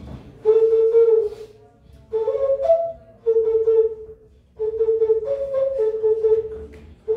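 Xigoviya, a small hand-held vessel flute, played in short phrases: a low held note that steps up two notes and falls back, with brief breaths between phrases.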